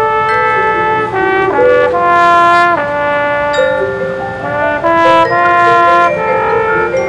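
Marching band's brass section playing held chords that shift every second or so, with cymbals crashing about two seconds in and again around five seconds in.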